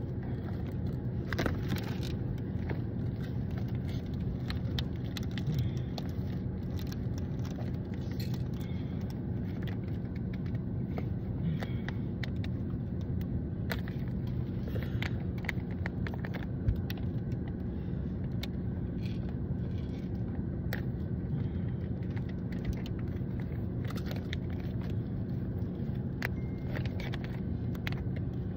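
Crinkling and crackling of a foil toy packet being handled and torn open, many short sharp crackles throughout, over the steady low hum of a running car heard from inside the cabin.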